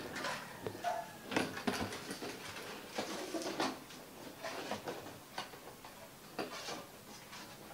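Scattered light clicks, knocks and rustles of a blue plastic hamster cage with a wire-mesh lid being handled and carried.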